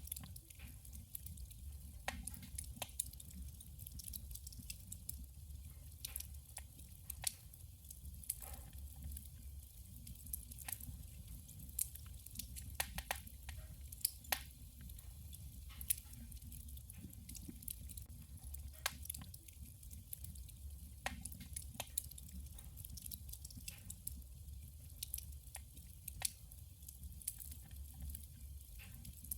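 Wood fire burning in a wood stove: irregular sharp crackles and pops over a steady low rumble of the flames.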